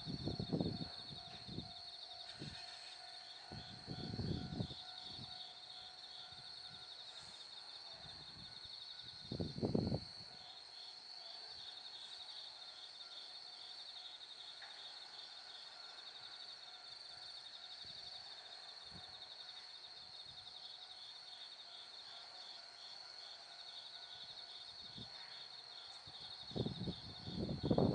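Steady insect chirring, a constant high tone with a fast pulsing trill beneath it, broken by a few short low rumbles about 4 s and 10 s in and again near the end.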